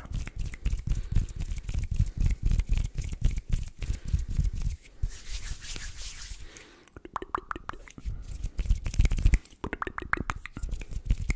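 ASMR hand sounds: hands rubbing and moving right against a sensitive microphone, giving dense low rustling with many small crackles. It eases in the middle to a soft airy swish.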